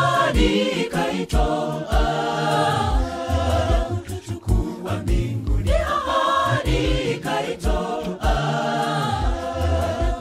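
Gospel vocal group of men's and women's voices singing in harmony over a steady low beat.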